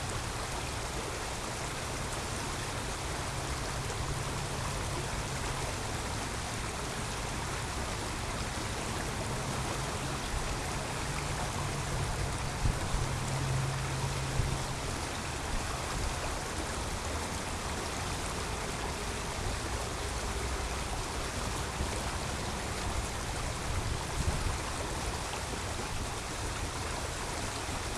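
Creek water running, a steady rushing sound, with a low rumble swelling under it around the middle.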